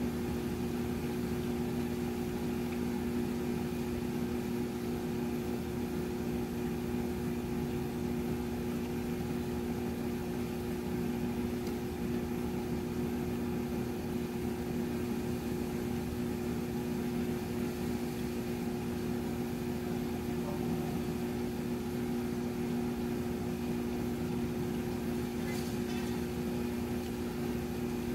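A constant low mechanical hum at a steady pitch, over an even steady hiss.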